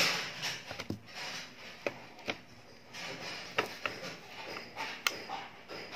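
Scattered light clicks and taps, about eight of them at irregular moments, over a faint room hiss.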